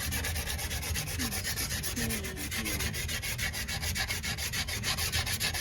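Sandpaper or emery cloth rubbed rapidly back and forth on a copper pipe, about nine strokes a second, cleaning the pipe to prepare it for cutting.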